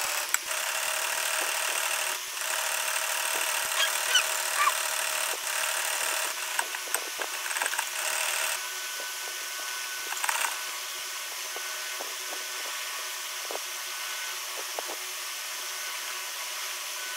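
Sewing machine running steadily as a seam is stitched through cotton fabric, stopping about eight or nine seconds in. After that, a fainter steady noise with a few light clicks as the cloth is folded into pleats by hand.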